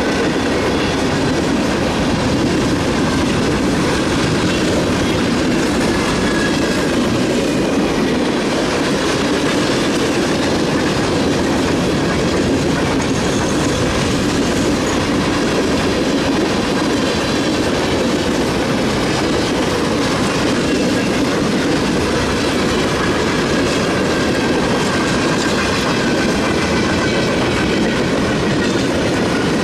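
Freight cars of a Norfolk Southern train rolling past at a grade crossing: a loud, steady rumble of steel wheels on rail that does not let up.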